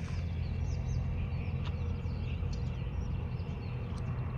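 Outdoor background: a steady low rumble with small birds chirping now and then.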